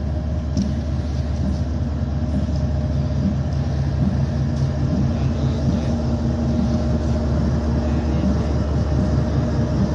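Diesel locomotive engine running with a steady low drone as the goods train draws slowly toward the platform, growing slightly louder as it nears.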